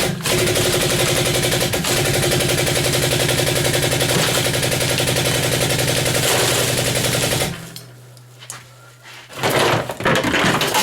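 A power tool running loud with rapid, even strokes, machine-gun-like, for about seven seconds, then stopping. A low hum carries on briefly, and another loud rattling noise starts near the end.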